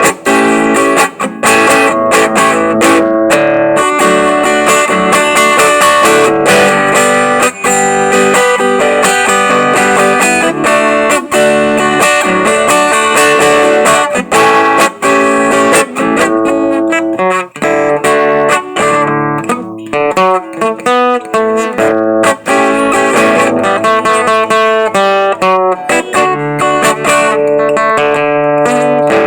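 Acoustic guitar (violão) playing a continuous stream of plucked notes, with the notes changing quickly throughout.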